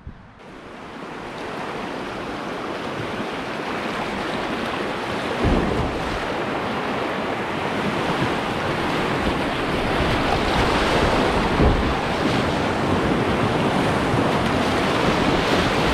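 Rushing whitewater of a river rapid, growing steadily louder throughout, with wind on the microphone and a couple of brief low thumps about five and a half and twelve seconds in.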